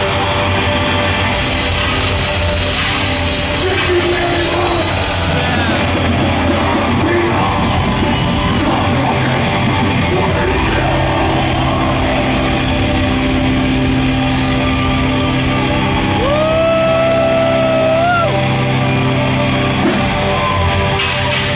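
Heavy metal band playing live and loud, with distorted guitars, bass and drums. About two-thirds of the way through, a single note is held for about two seconds and bends just before it stops.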